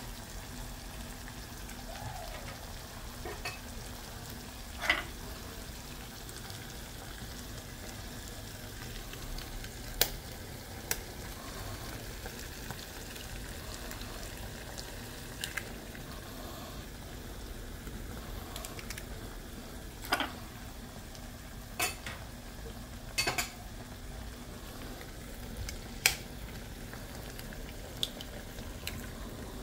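Chili sambal simmering in a steel wok with a steady low sizzle, broken every few seconds by a sharp crack as eggs are cracked open over the pan.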